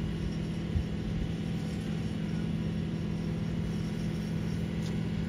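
Tractor's diesel engine running steadily under load as it pulls a stuck livestock trailer through deep mud on a chain, with one brief thump about a second in.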